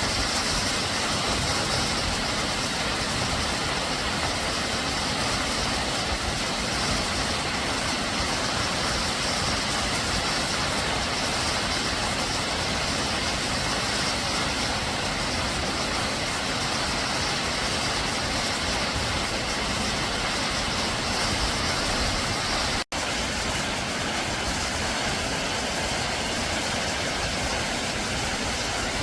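Waterfall: a steady, dense rush of falling water, with a momentary break about 23 seconds in.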